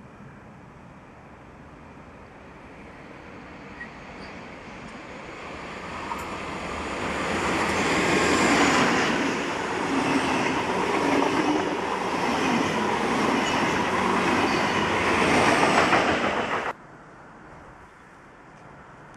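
A passenger train with double-deck coaches approaching and passing close by on the rails, growing louder from about four seconds in, then the sound cuts off suddenly near the end.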